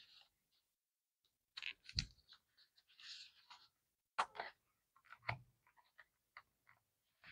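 Faint handling noises from a small disc-bound journal: scattered light clicks and taps from its plastic binding discs and cardboard cover, with a soft paper rustle near the middle and a duller knock a little past five seconds.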